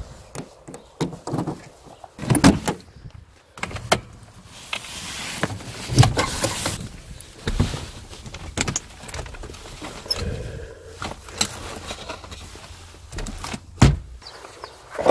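Handling sounds of a Lada 2107: a key rattling in the door lock, the door opened and shut, then clicks and knocks from inside the cabin. A string of separate sharp clicks and thumps, the loudest about six seconds in and near the end.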